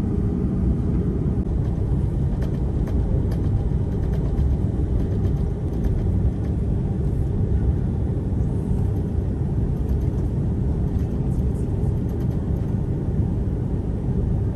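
Cabin noise of an Airbus A330-300 taxiing: a steady low rumble from its Rolls-Royce Trent 700 engines at taxi power and the rolling airframe, with a few faint light ticks from the cabin.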